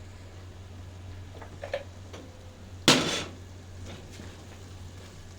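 Cookware clanking in the kitchen: a light clink, then about three seconds in one loud sharp metal clank that rings briefly, over a steady low hum.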